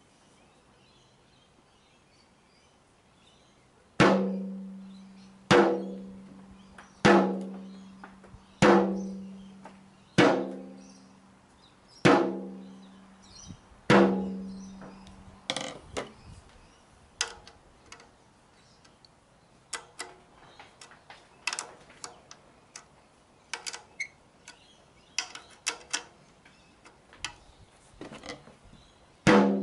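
A 10-inch tom with an Evans head struck with a drumstick while being tuned. Starting about four seconds in come seven firm hits about a second and a half apart, each ringing out at a pitch around G3. These are followed by many lighter, quicker taps near the edge of the head, lug by lug.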